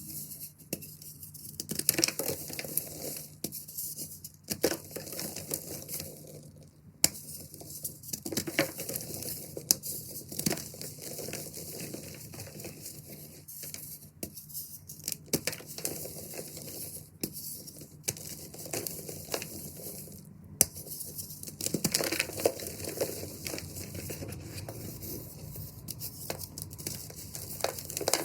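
Reformed gym chalk blocks being crushed and crumbled by hand, an irregular run of crunches, crackles and sharp snaps with soft powdery crumbling between them.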